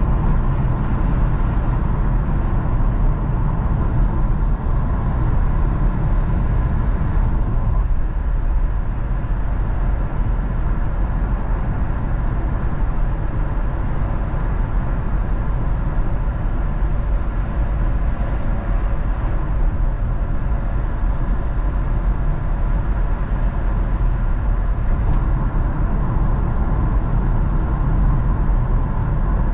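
Car on the move: steady road and engine noise with a heavy low rumble.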